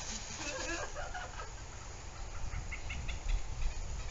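Short chirping animal calls: a cluster in the first second or so, then a few quick high chirps about two and a half to three and a half seconds in, over a steady low rumble.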